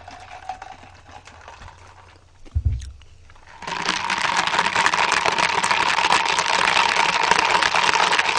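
A thud, then about three and a half seconds in a loud, steady mechanical whirr with a constant hum-like tone starts up and keeps going.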